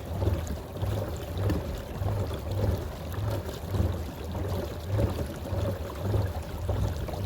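Water rushing and splashing along a pedal-drive kayak's hull as it is pedalled at full speed, about 3.8 mph, with a low pulse about twice a second.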